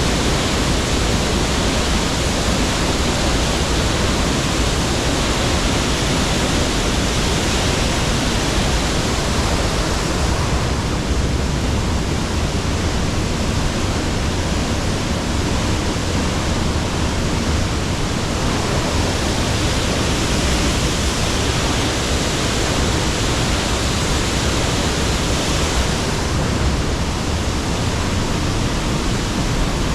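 Cascading waterfall rushing loudly and steadily. Its higher hiss thins a little about ten seconds in and returns near the end.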